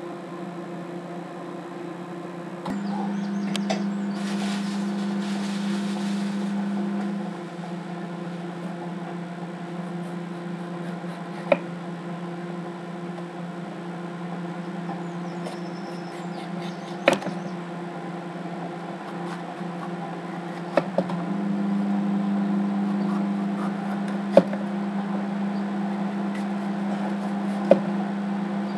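Microwave oven running on defrost with a steady electrical hum. The hum grows louder about three seconds in for some four seconds, then again for the last eight seconds or so. A kitchen knife knocks sharply against a wooden chopping board a handful of times while slicing a bell pepper.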